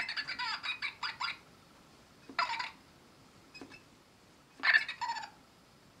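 Plush yellow ladybird toy making its silly squeaky noises when squashed: short, high bursts that waver and bend in pitch. There is a quick run of them at the start, another about two and a half seconds in, a faint short one after that, and a last burst near the five-second mark.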